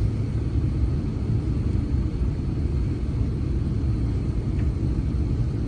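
Steady low cabin rumble of an airliner in flight on its landing approach, heard from inside the passenger cabin.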